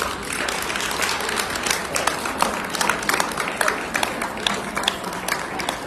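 Audience applauding: many hands clapping in a dense patter that starts suddenly and carries on throughout.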